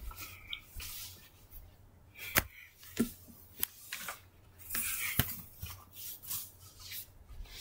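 Handling noise close to the microphone: clothing rustling and brushing past as someone moves about, with a few scattered sharp knocks and taps, the loudest about two and a half and five seconds in.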